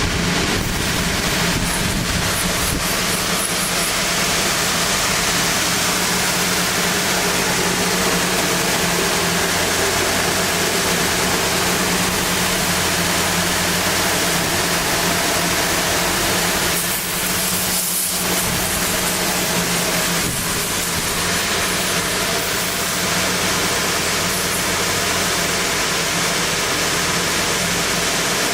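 CNC sander running, sanding a snowboard wood core: a steady, loud rushing noise over a low motor hum, briefly dipping about two-thirds of the way through.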